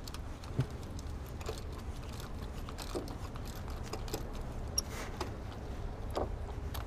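Light metallic clicks and rattles of a ratchet and socket loosening an ignition coil's hold-down bolt, then the coil being pulled from its spark plug well. The clicks come singly and irregularly, not as a steady ratchet run.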